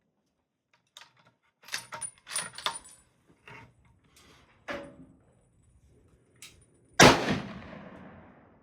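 A few metallic clicks and clacks of a gun being handled, then a single loud gunshot about seven seconds in, its echo dying away over a second or so.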